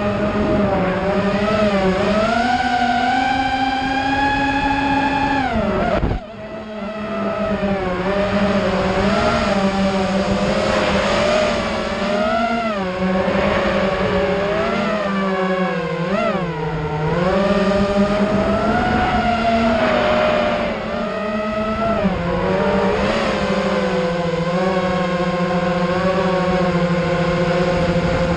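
ImpulseRC Alien FPV racing quadcopter's motors and propellers whining, heard from its onboard camera, the pitch rising and falling with the throttle. About six seconds in the throttle is chopped: the pitch and loudness drop sharply, then build again.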